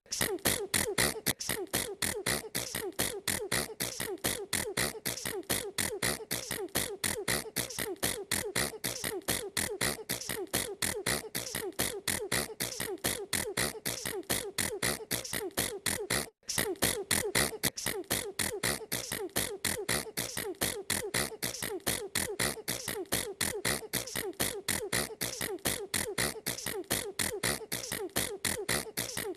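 A girl sneezing over and over in rapid succession, short sneezes several a second in an even, unbroken rhythm. The train drops out for an instant about 16 seconds in, then carries straight on.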